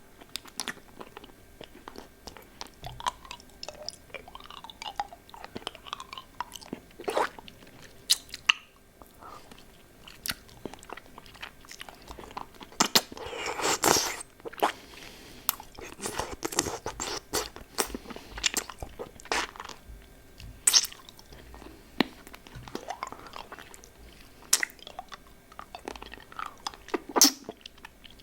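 Close-miked mouth sounds on a lollipop: wet sucking and licking with many short sharp clicks and smacks, and a longer, louder stretch about halfway through.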